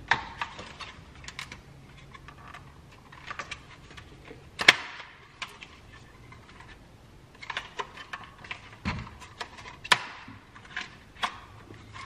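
Plastic dash trim and its clips on a BMW E92 dashboard clicking and knocking as the trim piece is handled and fitted back into place, with a sharp snap about four and a half seconds in and another near ten seconds.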